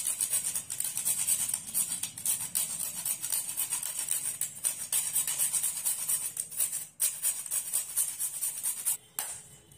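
A whole nutmeg being grated on a flat hand grater: a quick, steady run of dry rasping scrapes that stops about nine seconds in.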